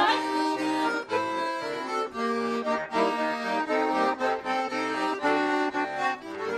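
Accordion playing a lively instrumental interlude of a Russian folk-style song, a quick run of short chords and melody notes with no singing.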